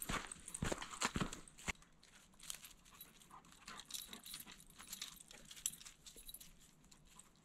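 A dog moving close by: short, irregular crackles and clicks, a cluster in the first couple of seconds, then sparse and faint.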